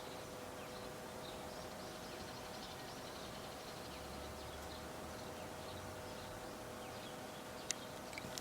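Faint outdoor ambience with many small, quick bird chirps over a steady faint hum, and a single sharp click near the end.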